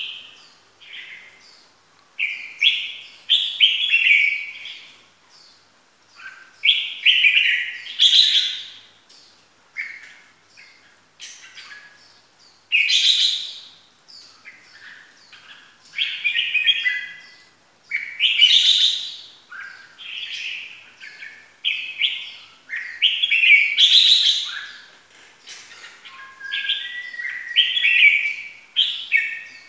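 Red-whiskered bulbul singing: a run of short, bright, warbling phrases, one every second or two.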